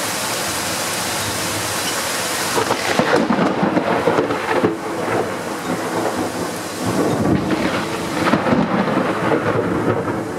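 Heavy thunderstorm rain hissing steadily. About three seconds in, loud rumbling surges begin to come and go over it, twice.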